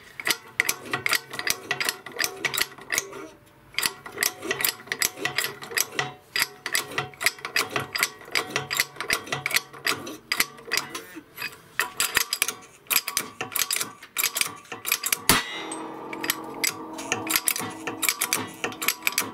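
Hydraulic press being worked to force a new rear beam bushing into place: a fast, uneven run of mechanical clicks with a couple of short pauses. A sharp knock about fifteen seconds in, then a steady hum.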